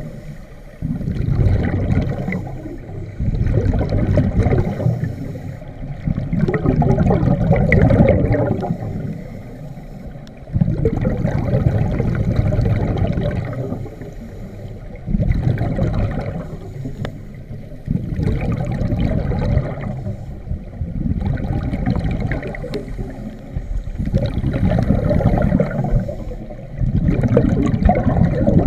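Scuba regulator exhaust bubbles rushing and gurgling past the microphone underwater, swelling in bursts every few seconds with each exhaled breath, with quieter gaps between.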